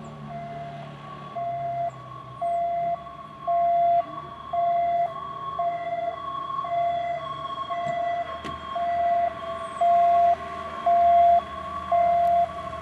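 Two-tone emergency siren of the race's police motorcycle escort, switching steadily between a low and a high note about once a second. It grows louder as it approaches and cuts off near the end.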